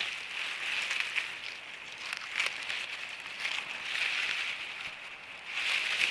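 Grass and dry fallen leaves rustling close to the microphone as a hand and the camera push through the undergrowth, in irregular swells with a few small crackles.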